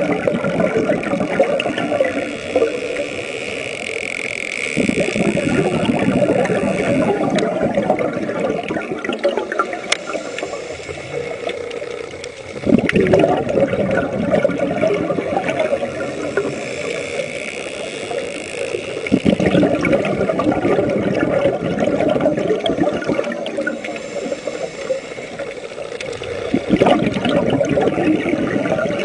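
Water churning and gurgling, a continuous noisy wash with a few sharp knocks in it.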